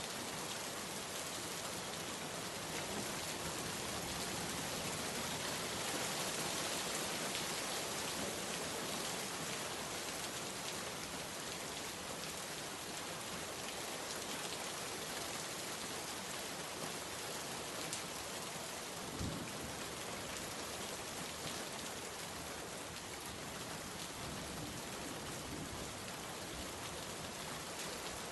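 Steady rain falling, a dense even patter of drops on surfaces, with a single brief low thump about two-thirds of the way through.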